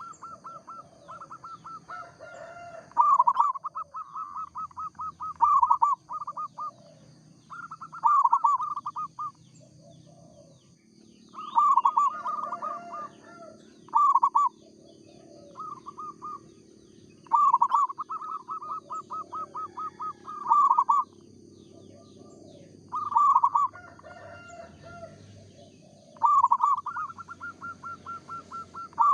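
Zebra doves (local perkutut) cooing: repeated phrases of rapid stuttering coo notes every one to three seconds, from more than one bird with calls sometimes overlapping. A faint steady high tone runs behind them.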